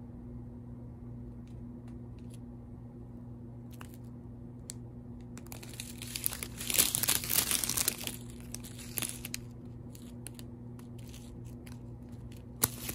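Plastic packaging crinkling as it is handled, loudest for about two seconds in the middle, with scattered light clicks and taps before and after.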